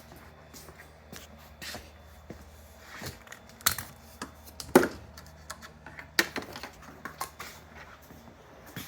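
Irregular knocks and clicks of a CNC machine and its table being handled and put away, the sharpest knock about five seconds in, over a faint steady low hum.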